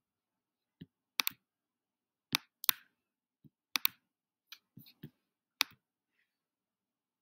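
A dozen or so sharp computer mouse clicks over about five seconds, some in quick pairs like double-clicks, then they stop.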